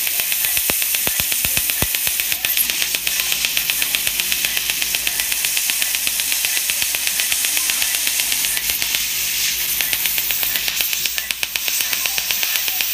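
Fotona LightWalker Er:YAG dental laser firing at a tooth: a rapid, even train of snapping pops as it cuts away tooth structure for a composite filling, over a steady hiss.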